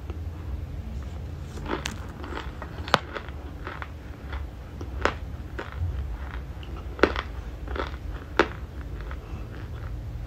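Close-up chewing of raw cornstarch chunks: crisp, crackly crunches, with five sharper, louder crunches spaced a second or two apart, over a low steady hum.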